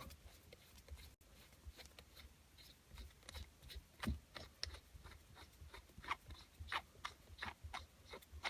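Faint, irregular small clicks and scrapes of a shift knob retainer locking nut being threaded down the gear shifter stalk by hand until snug, the clicks coming more often in the second half.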